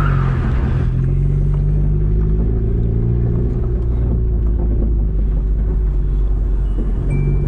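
Car engine running steadily at low revs, a low even drone. Near the end a high electronic chime starts to sound in short repeats.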